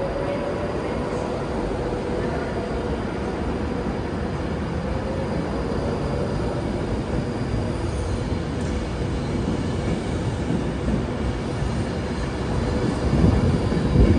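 Train running on the main line, a steady rumble with a faint hum through it, growing louder near the end.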